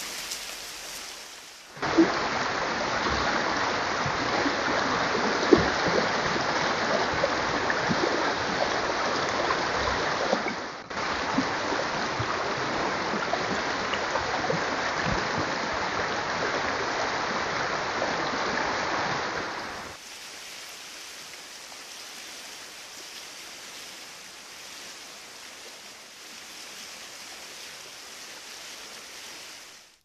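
Steady rushing hiss of outdoor noise picked up by a trail camera's microphone, with a sharp click about two seconds in and another a few seconds later. It drops to a much fainter hiss about two-thirds of the way through.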